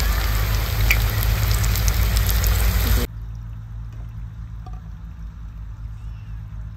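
Battered chicken pakoras deep-frying in hot oil in a wok: a steady sizzle with fine crackles. It cuts off suddenly about three seconds in, leaving only a much quieter low background.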